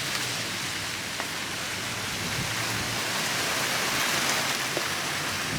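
A steady, even hiss of outdoor noise, like rain falling on foliage.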